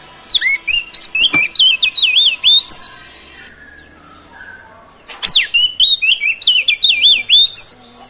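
Oriental magpie-robin (kacer) singing: two bursts of rapid, looping whistled notes, each about two and a half seconds long, with a pause of about two seconds between them.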